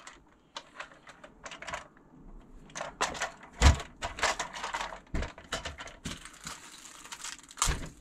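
Handling noise of a large plastic RC monster truck: scattered clicks and rattles as it is turned over in the hands, with a thump about three and a half seconds in as it is set down on the table and another just before the end.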